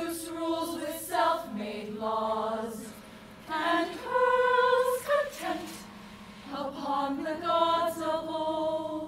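A chorus of voices chanting in song together, in three phrases with short breaks between them.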